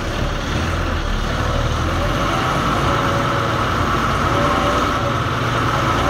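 Lorry's diesel engine idling steadily, heard from inside the cab.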